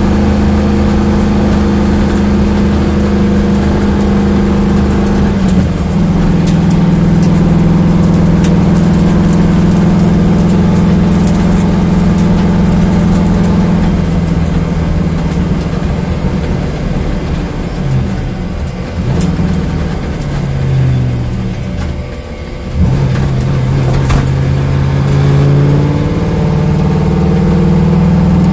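Corvette engine running with a misfire. It holds a steady speed for the first half, then its pitch drops and wavers unevenly for several seconds with a brief dip in loudness, and it settles back to a steady run near the end.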